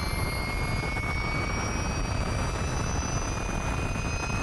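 Ducati V21L electric racing motorcycle at full throttle on a straight, its electric motor whining in a pitch that climbs slowly as it gathers speed, over a heavy rush of wind noise.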